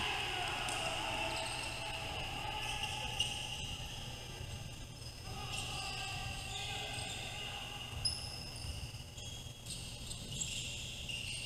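Basketball game sounds: a ball bouncing on the court, with two sharp knocks about three and eight seconds in, over a steady background of voices.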